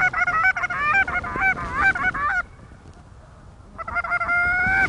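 Canada goose honks: a quick run of short honks and clucks that break sharply in pitch, then after a short pause one longer, steadier honk near the end.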